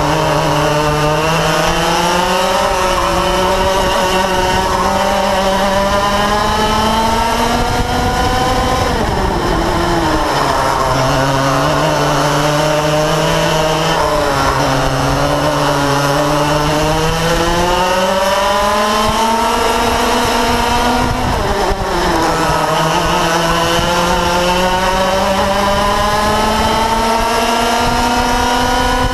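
Yamaha KT100 two-stroke kart engines running flat out in a race, heard from a camera mounted on one kart. The pitch climbs steadily down each straight and drops sharply when lifting for corners, most clearly about nine seconds in and again about twenty-two seconds in.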